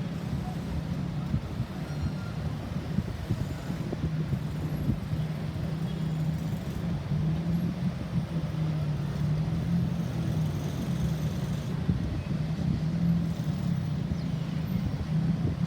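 Road traffic: a motor vehicle's engine running with a steady low hum, no siren sounding.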